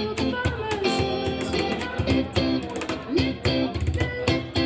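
Instrumental passage of live band music: an electric guitar playing notes and chords over a steady beat of hand strikes on a cajon.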